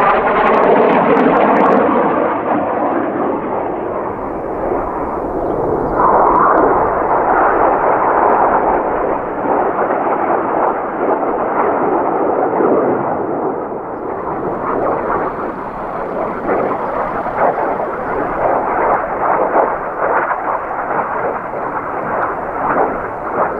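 Northrop F-5E Tiger II jets flying past, their twin afterburning J85 turbojets giving loud, rough, crackling jet noise. In the first two seconds a whine falls in pitch as one jet passes. The noise swells again about six seconds in and stays loud and crackling.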